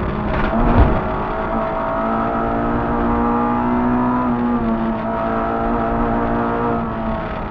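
Peugeot 106 1.3 rally car's four-cylinder engine heard from inside the cabin, running hard at a nearly steady pitch on the stage. The pitch dips slightly about four and a half seconds in. A sharp thump under a second in is the loudest moment.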